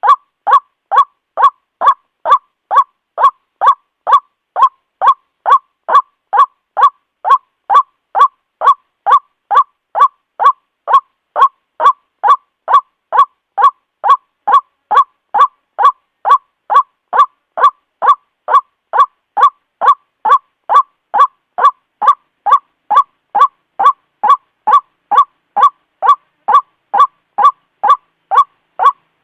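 White-breasted waterhen (Amaurornis phoenicurus) calling, a loud steady run of short, evenly repeated 'kwak' notes at about two a second, without a break.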